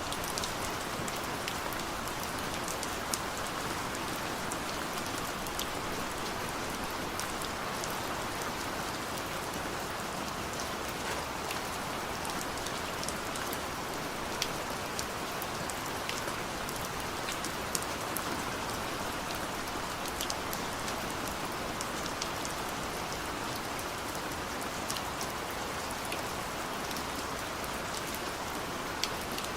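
Heavy rain falling steadily: a constant dense hiss with many scattered sharp ticks of single drops.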